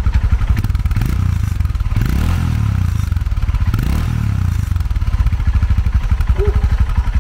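Royal Enfield Himalayan 411's single-cylinder engine running through a newly fitted MASS stainless slip-on exhaust with the dB killer in. It idles with an even beat and is revved up twice, from about a second in to about four and a half seconds, then settles back to idle.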